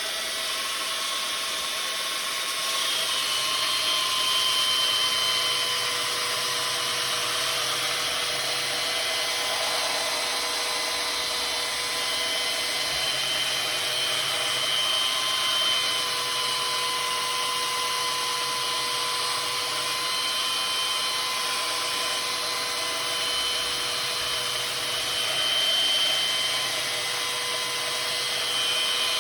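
Ryobi handheld belt sander running steadily while the edge of a maul is sharpened on its belt, the sound swelling and a higher whine coming in several times.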